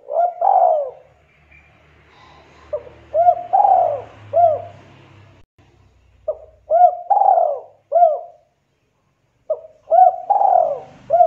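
Caged dove cooing: four phrases of about four rising-and-falling coos each, roughly three seconds apart, the last cut off at the end.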